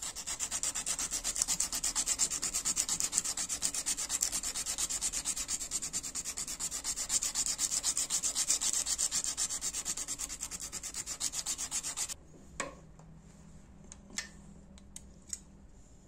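Hand-sanding a stainless steel knife blade clamped in a vise with abrasive cloth: fast, even back-and-forth rasping strokes that stop about twelve seconds in, followed by a few light clicks.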